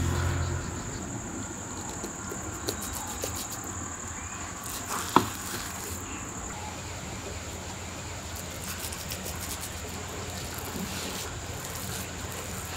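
Steady, high-pitched drone of insects, with faint clicks and soft scrapes of a wooden spoon scooping thick semolina batter from a bowl into a pan; one sharper click about five seconds in.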